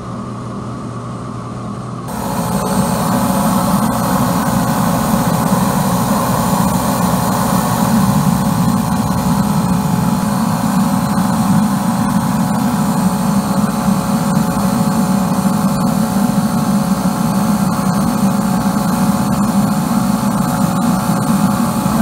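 Diesel-fired combustor of a small mono-tube steam boiler running steadily, a low rumble with a few steady tones over it; about two seconds in it gets louder and a hiss comes in.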